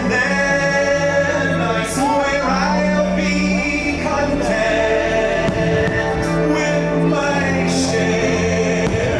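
Show music with a choir and solo voices singing over a full musical backing.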